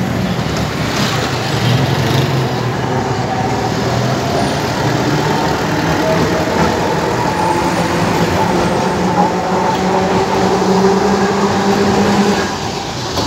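A two-car Alexandria Raml tram passing close by, its wheels running on the rails with a steady rumble. A steady hum joins about halfway through. The sound eases off near the end as the cars go by.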